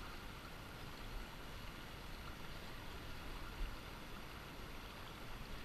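Steady rush of the river's current running over riffles.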